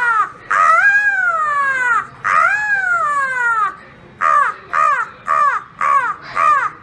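A woman imitating an animal call with her voice: long calls that rise and then fall in pitch, each about a second and a half, followed by a quicker run of short calls of the same shape, about two a second.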